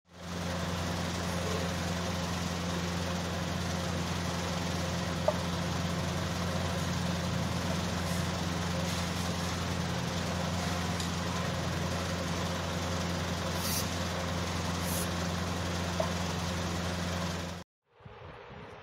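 A steady low machine hum with a constant hiss, unchanging in level, with two faint clicks along the way. It cuts off suddenly near the end.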